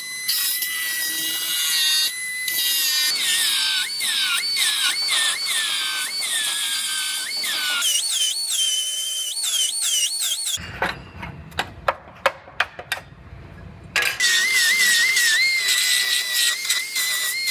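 Air-powered finger belt sander whining at high speed while grinding back the edge of a steel body panel; its pitch dips again and again as it bears on the metal. It stops for a few seconds in the middle, where a few sharp clicks are heard, then runs again with a steadier whine.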